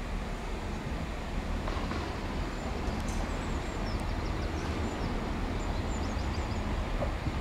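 Steady low rumble of a train at a railway station, with no clear change in the noise.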